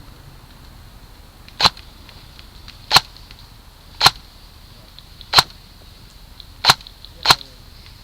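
Airsoft gun firing single shots: six sharp cracks, roughly a second apart, the last two closer together.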